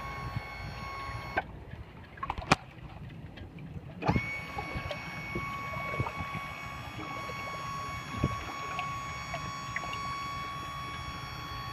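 A small electric motor whining steadily, as an outboard's power tilt motor runs to lower the motor. It cuts out about a second and a half in and spins up again about four seconds in. A sharp knock comes in the pause, over a low wash of water.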